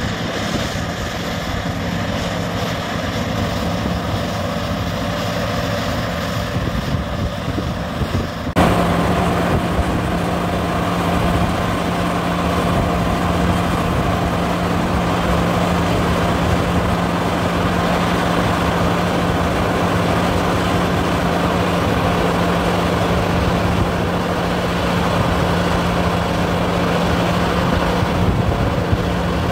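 New Holland combine harvester running, its engine and threshing machinery droning as it harvests wheat. About a third of the way in the sound jumps louder to a steadier drone with a low hum, as the combine unloads grain through its auger into a trailer.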